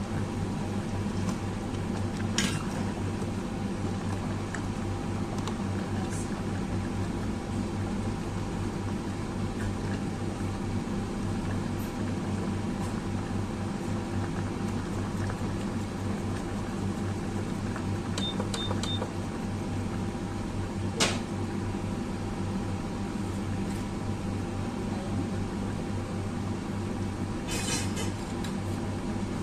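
Steady hum of a kitchen appliance's motor over a pot of soup at a rolling boil, with a metal ladle clinking against the stainless steel pot a few times. Three short high beeps sound about two-thirds of the way in.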